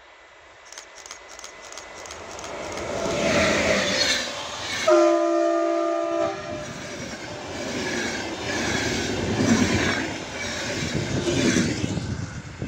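A ČD class 193 Siemens Vectron electric locomotive hauling an intercity train draws near and passes close by, its rumble building. About five seconds in it gives one horn blast lasting about a second and a half. Then the coaches run past with a rhythmic clatter of wheels over the rail joints, which fades away near the end.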